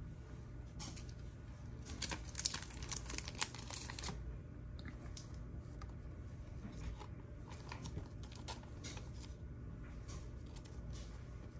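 Trading cards and a clear plastic card sleeve being handled: crinkling plastic and light clicks of card stock, busiest about two to four seconds in, then sparser.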